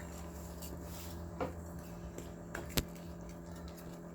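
Pancake batter being stirred in a bowl, with a few sharp clinks of the utensil against the bowl, the loudest near the end, over a steady low hum.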